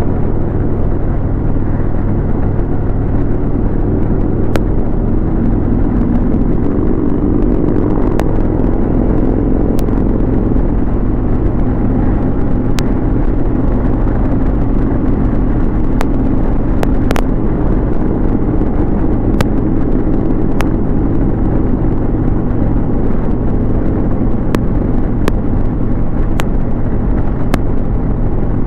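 Harley-Davidson Road King's V-twin engine running steadily at highway cruising speed, mixed with wind rush and road noise, with occasional sharp ticks.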